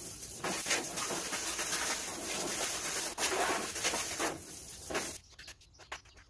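Garden hose spraying water over a car, a steady hiss that swells and fades as the spray sweeps across the bodywork, cutting off about five seconds in.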